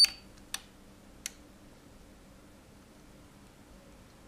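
Button presses on a Sonel MRP-200 RCD tester: a sharp click with a short high beep right at the start, then two lighter clicks about half a second and a second and a quarter in, as the test polarity is switched.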